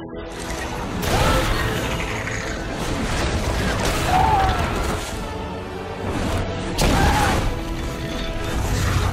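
Action-film battle soundtrack: a dramatic score mixed with heavy crashes and booming impacts of stone smashing into soldiers and walls. The biggest hits land about a second in and again about seven seconds in.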